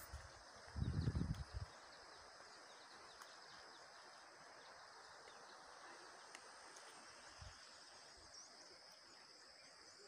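Faint, steady insect chirring in outdoor ambience, with a brief low rumble on the microphone about a second in.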